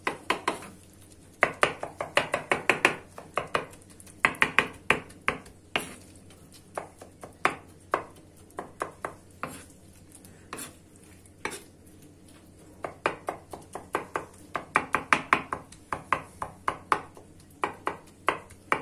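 Kitchen knife chopping soft roasted aubergine flesh on a wooden cutting board, the blade knocking the board in quick runs of several strokes a second with short pauses between.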